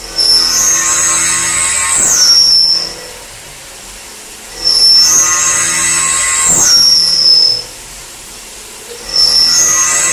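Hurco VMX60t CNC mill cutting 304 stainless steel with a 10 mm carbide end mill at 2500 rpm, 15 mm deep, under flood coolant. It goes in repeated loud, high-pitched screeching cuts of about three seconds each, two full ones with a third starting near the end. Between the cuts a quieter, steady high whine remains.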